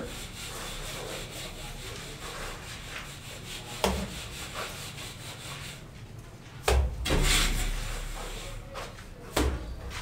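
Hand plastering with a trowel and bucket of mortar: the trowel scrapes mortar out of the bucket and slaps it onto the wall. Three sharp knocks stand out, the middle one followed by a short scrape.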